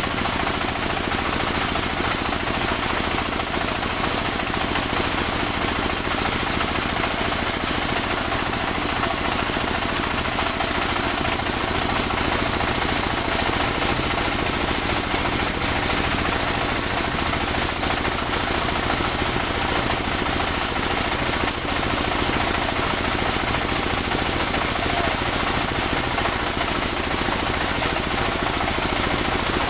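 Portable band sawmill running steadily, its engine and spinning band wheel making a continuous loud mechanical noise with a steady high hiss over it.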